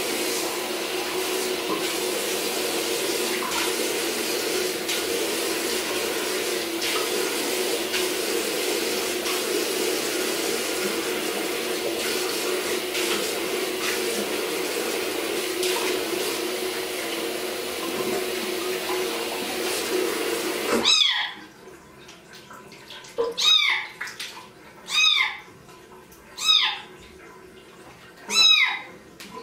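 Bathroom sink faucet running steadily, water splashing into the basin while a kitten is rinsed under it. The tap shuts off about two-thirds of the way through, and the wet kitten then meows about five times, short high cries.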